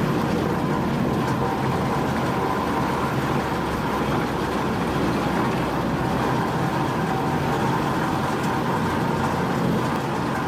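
Industrial wood shredder running steadily, a constant machine noise with no breaks or distinct impacts.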